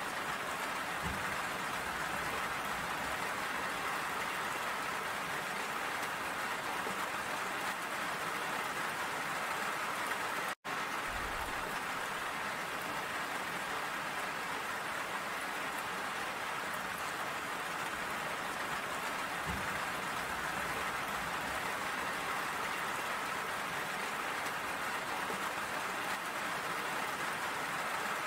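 Steady rain falling, an even hiss of many drops, broken by a momentary dropout to silence about ten seconds in.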